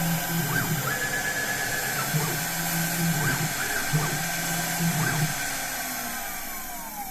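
Small CNC router's high-speed spindle whining while the axis stepper motors hum in short moves that start and stop. Near the end the spindle's pitch falls away as it slows down.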